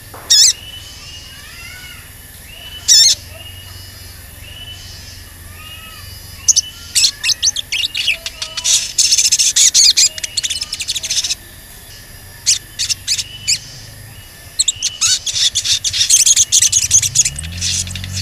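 Male olive-backed sunbird calling: rapid, very high, sharp "cuit cuit" chips, with two loud single notes near the start, then dense chattering runs about six seconds in and again near the end. Softer repeated arched whistles go on behind.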